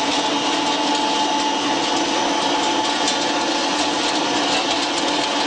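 Sawdust pellet mill running steadily: a continuous loud mechanical din with a steady hum underneath.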